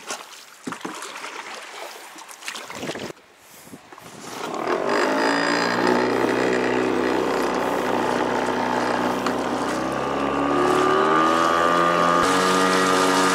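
Paddle strokes splashing the water for the first few seconds. Then a fishing kayak's small motor starts about four seconds in and runs steadily with a hum of several tones, stepping up in speed near the end.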